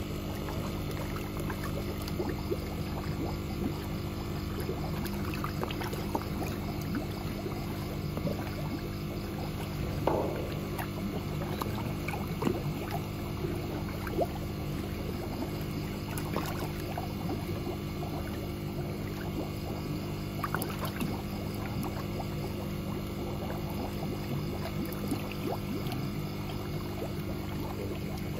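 A machine motor running with a steady hum, with scattered clicks and knocks, the loudest about ten and twelve seconds in.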